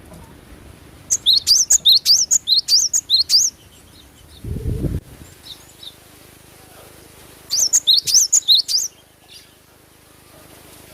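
Cinereous tit (glatik batu) singing: two quick runs of high, sharp chirps, the first about two seconds long starting about a second in, the second shorter near the end. A short low thud falls between them.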